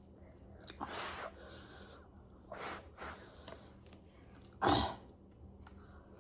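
Three short, noisy mouth-and-breath sounds close to the microphone while eating, such as sharp breaths or slurps. The third, about three-quarters of the way through, is the loudest.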